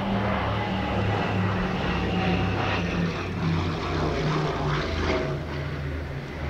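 Short Sunderland flying boat's four radial piston engines and propellers droning steadily as it passes low overhead.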